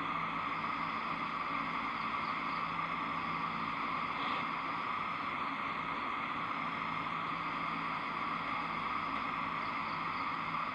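Steady background noise: a constant hiss with a faint low hum underneath, unchanging throughout.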